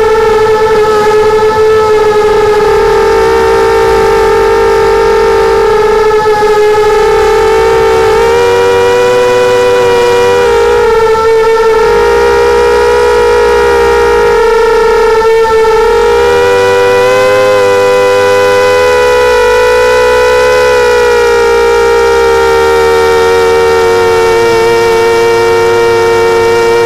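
Mini 250 quadcopter's four brushless motors and propellers whining in flight, picked up by its onboard camera. Several close tones drift apart and back together as the throttle changes, most of all in the second half.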